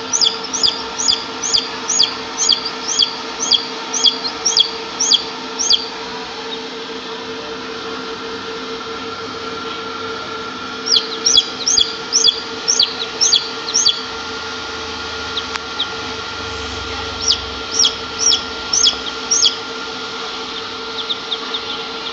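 Newly hatched chick peeping in an egg incubator: short, high, falling peeps about two a second, in three bouts. The incubator's steady hum runs underneath.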